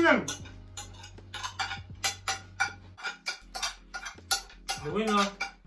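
Spoons clicking and scraping against plates as several people eat, over background music with a steady bass line.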